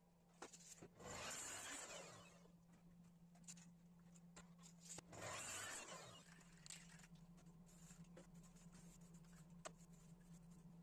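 Faint scraping, twice, each about a second long, with a few light clicks and a steady low hum throughout.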